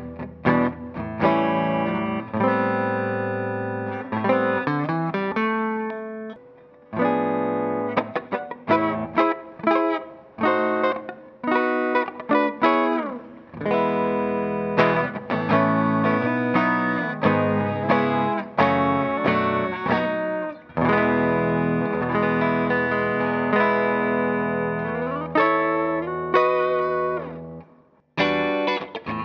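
Bacchus Universe Series T-style electric guitar played with a clean tone on its neck pickup, mixing chords with single-note lines. Near the end the playing stops for a moment and a new passage begins.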